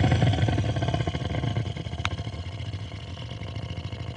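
Cartoon beating sound effect: a dense, rapid flurry of thumps and rattles over a heavy rumble, slowly fading.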